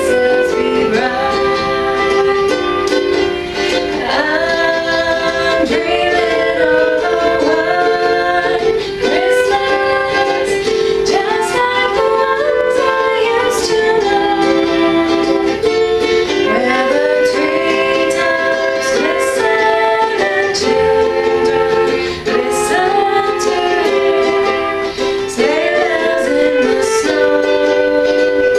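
A woman singing while strumming a ukulele, with a flute playing along.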